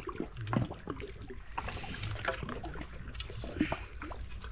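Water sloshing and trickling, with scattered knocks and splashes.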